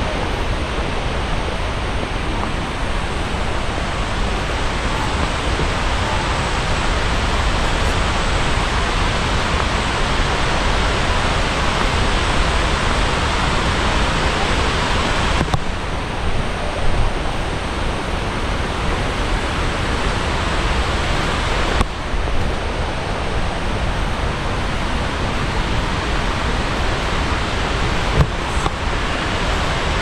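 Waterfall: water pouring and splashing in a steady, loud rush, changing abruptly twice, about halfway through and again about two-thirds through.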